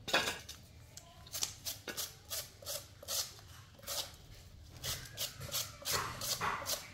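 Small kitchen knife peeling a root vegetable by hand: a string of short scraping strokes, two or three a second, after a sharp knock at the start.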